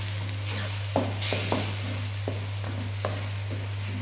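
Ground spice paste sizzling in a wok as it is sautéed, with a spatula scraping through it and knocking against the pan a few times.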